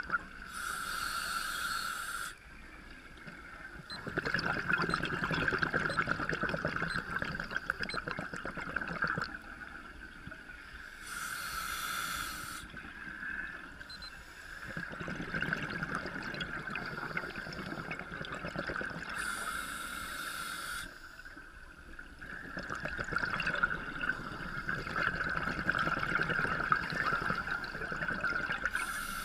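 Scuba diver breathing through a regulator underwater: a short hiss of inhalation about every eight to ten seconds, four times, each followed by a long rush of gurgling exhaled bubbles. A steady high whine runs underneath.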